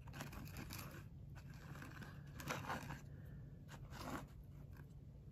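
Faint scrapes and rustles as a small plastic model container is handled and tilted on a cutting mat, a few soft scrapes about a second in, around two and a half to three seconds in, and again near four seconds, over a steady low hum.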